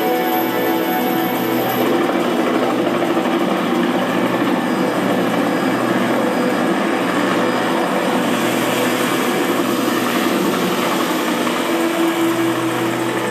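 Film soundtrack played back through a Zebronics Juke Bar 9700 Dolby Atmos soundbar: a loud, steady engine drone from an action scene, thin at the bottom with the deep bass missing.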